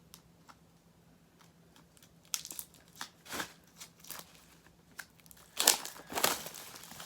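Plastic shrink-wrap on a CD album being torn and crinkled off by hand, in irregular crackly bursts that begin about two seconds in and are loudest near the end.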